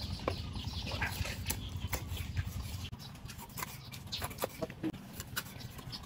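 Kitchen knife chopping through an eel on a wooden chopping board, with many short, irregular knocks of the blade against the wood.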